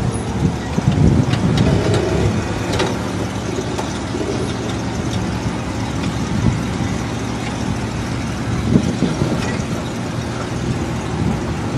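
Lifted Jeep Cherokee XJ's engine running at low revs, a steady low drone, as the truck crawls its big tyres down off a concrete block.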